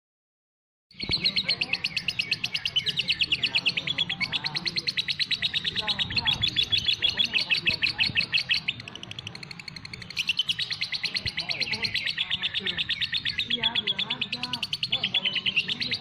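Caged songbird singing a fast, rhythmic run of repeated high chirps, many notes a second. It starts abruptly about a second in and eases briefly in the middle before going on.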